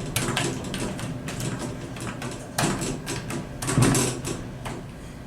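Lift doors and their door operator working: a run of mechanical clicks and clunks, with two louder knocks about two and a half and four seconds in, then dying away.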